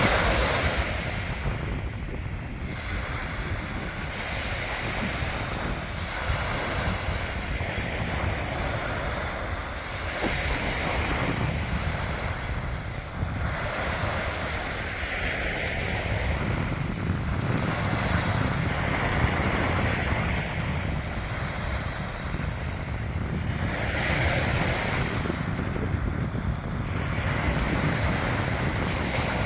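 Sea waves washing onto a beach, swelling and easing every few seconds, with wind rumbling on the microphone.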